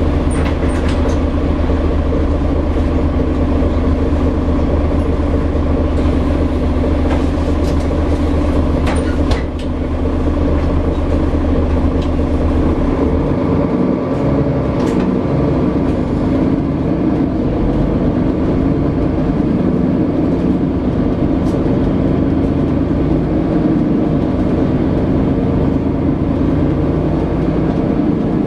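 Setra S415NF city bus heard from inside the passenger cabin: a diesel engine idling with a steady low hum, and a few sharp clicks and knocks about nine seconds in. About halfway through the engine note changes as the bus pulls away, then it drives on with engine and road noise.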